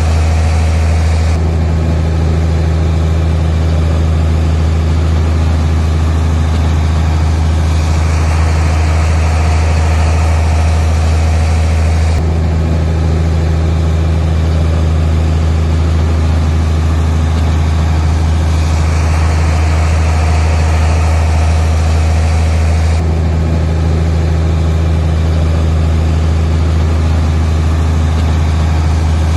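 Heavy diesel construction machinery running steadily at a loud, low pitch, with the sound changing abruptly every few seconds.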